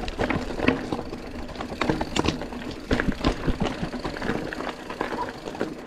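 Mountain bike clattering down a rough, rocky trail: a dense, irregular run of knocks and rattles from the bike as it goes over stones and roots, over a steady low rumble.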